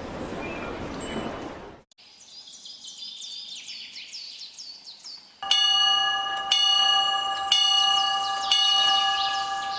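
Train running noise that cuts off just under two seconds in, then birds chirping, then a bell struck four times about a second apart, each strike ringing on while the birds keep calling.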